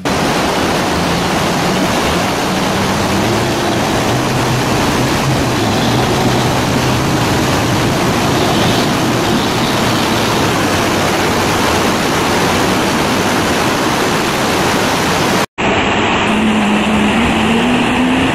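Fast river rapids rushing loudly and steadily, with a bus engine running faintly underneath as the bus fords the river. A sudden brief cut to silence comes about fifteen seconds in, after which the engine note rises slowly.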